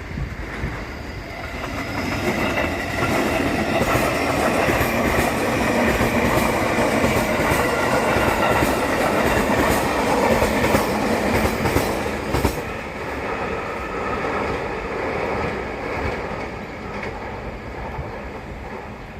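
A train passing through at speed, its wheels clicking over the rail joints. The sound builds over the first few seconds and stays loud for about ten seconds. The clicking then stops and the rumble fades as the train moves away.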